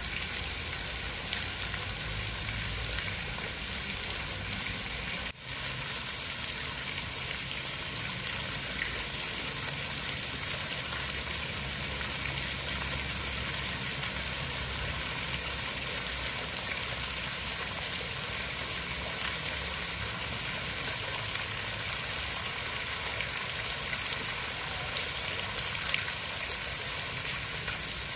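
Steady rain falling: an even hiss with scattered small drop ticks. It drops out for an instant about five seconds in.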